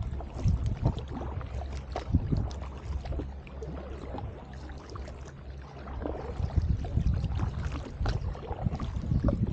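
Double-bladed paddle dipping and pulling through river water on alternate sides of an inflatable drop-stitch kayak, each stroke splashing and dripping, over a steady low rumble. The strokes ease off for a couple of seconds midway, then pick up again.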